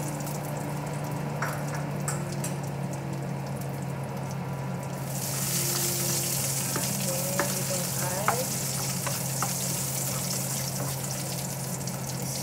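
Sliced garlic frying in oil in a stainless steel skillet, stirred with a spatula that scrapes the pan now and then. The sizzling grows louder and brighter about five seconds in.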